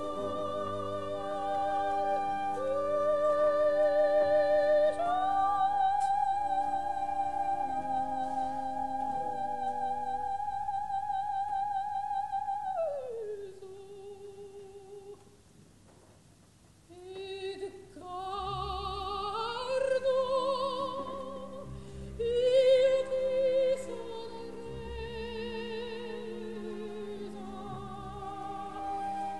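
Operatic soprano with orchestra in a slow passage: held notes with vibrato that glide down and stop about halfway, a short hush, then short sung phrases with wide vibrato over sparse orchestral chords.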